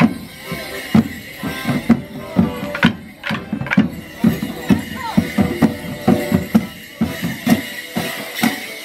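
Border morris band of drums and melodeons playing a dance tune, with a steady thudding drum beat and a few sharp clacks of the dancers' wooden sticks striking together.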